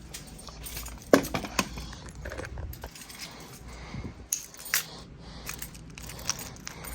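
Scattered sharp clicks and light rattling from small hard objects being handled, the loudest click a little over a second in.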